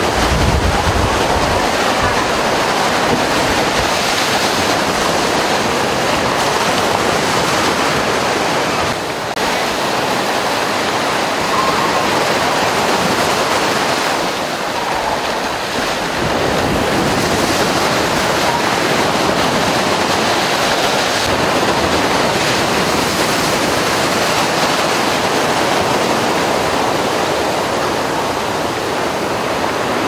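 Sea surf washing against a rocky shore: a steady rush of breaking waves that dips briefly twice.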